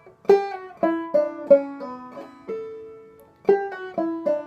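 Five-string banjo played clawhammer style: a short picked phrase of quick notes with a drop thumb and a pull-off, ending on a longer ringing note, then the same figure starting again about three and a half seconds in.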